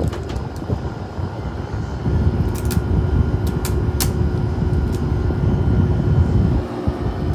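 Haier 5,200 BTU window air conditioner running, its fan blowing air with a steady rush. About two seconds in it gets louder and a steady hum joins, with a few sharp clicks soon after.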